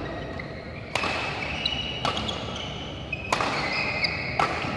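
Badminton rally: rackets strike the shuttlecock four times, about a second apart, with shoes squeaking on the court surface between the hits.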